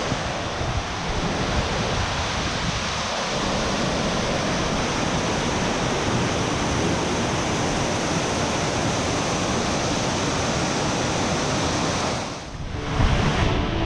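Steady, even rushing noise that dips and breaks off about twelve seconds in.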